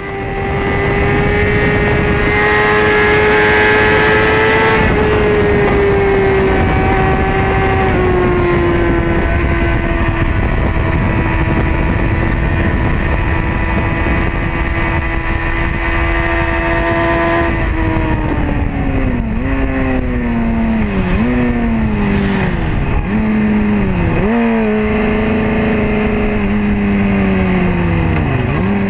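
Honda CBR600RR race bike's inline-four engine heard from a camera on its tail, held at high revs on the throttle for most of the time. About 17 s in, the revs fall in steps with quick jumps back up, as the rider changes down, and then settle at a lower steady pitch.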